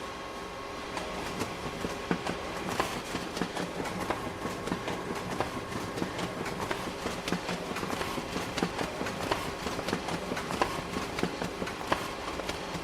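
Office printer printing, a run of quick irregular mechanical clicks and clacks over a steady running hum. It starts about a second in and stops near the end.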